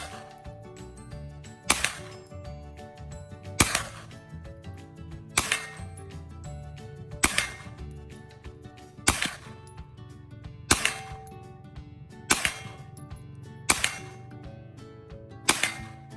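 Gunshots from a firearm fired one at a time at a slow, even pace, about one every two seconds, nine shots in all, each with a short ring-out after it. Steady background music tones run underneath.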